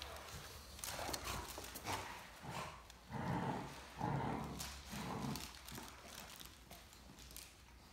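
Great Danes playing tug of war with a plush toy, giving a run of about six short growls and grunts over the first five seconds or so.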